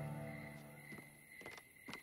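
Soft background music fading out, followed by slow cartoon footsteps: about two steps a second, starting about a second in.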